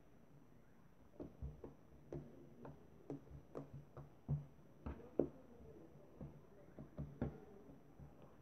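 Fingers poking and squeezing a lump of slime, giving irregular soft clicks and small pops, more than a dozen of them, starting about a second in.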